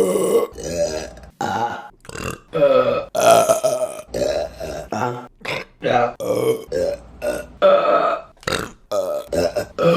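Women's burps in quick succession, more than a dozen, each under a second long, with abrupt cuts between them.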